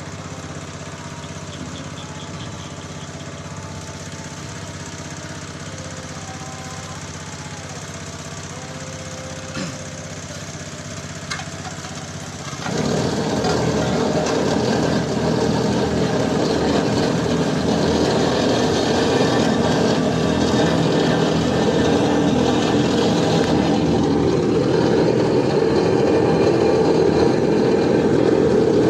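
An engine idling steadily, with a couple of light knocks, then about halfway through it suddenly runs much louder and keeps running hard.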